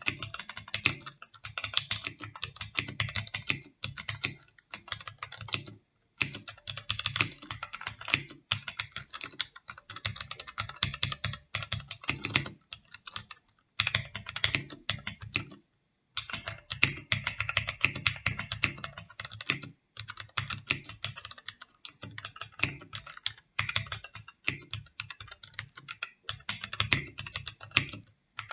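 Fast typing on a MAGEGEE MK-Box 65% mechanical keyboard with linear red switches and foam in the case bottom: dense runs of keystrokes with brief pauses about six and sixteen seconds in.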